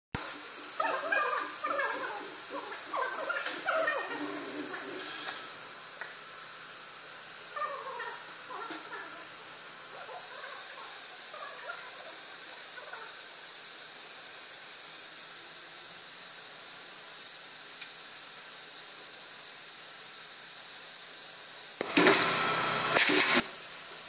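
Steady high hiss, like compressed air escaping, from a pneumatic aerosol can crimping machine. Near the end a short cluster of knocks and a burst of noise as the crimping head comes down onto the aerosol can.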